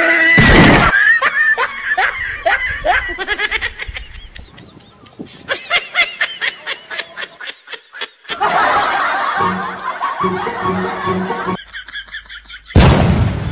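People laughing hard in repeated bursts, with a loud crash near the end.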